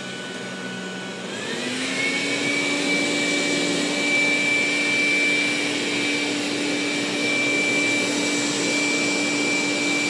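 Dreame L10 Pro robot vacuum running at standard suction, then its fan speeding up to turbo, the carpet mode, about a second and a half in: the whine rises in pitch and the running gets louder, then holds steady.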